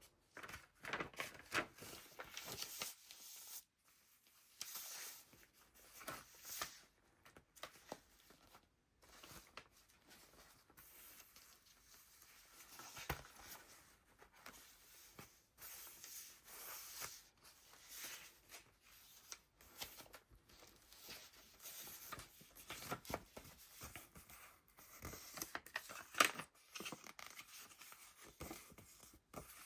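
Paper pages of a handmade junk journal being turned and handled, rustling and crinkling in irregular bursts with short pauses between.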